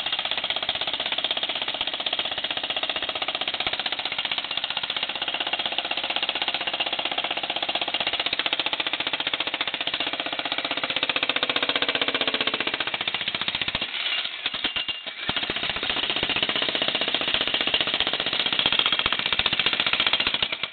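Bosch Brute electric breaker hammer running, a rapid, continuous hammering as it breaks concrete. It eases off briefly about fourteen seconds in, then resumes.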